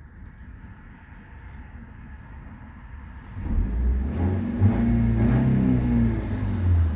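2005 Nissan Altima four-cylinder engine idling low, then revved by the accelerator pedal about three and a half seconds in, holding at higher revs for a few seconds before easing off near the end. The blips test the throttle response after a successful electronic throttle body relearn.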